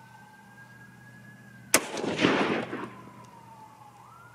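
A single shot from a .243 Winchester rifle about two seconds in, its report echoing and dying away over about a second. A siren wails faintly in the distance throughout, slowly rising and falling in pitch.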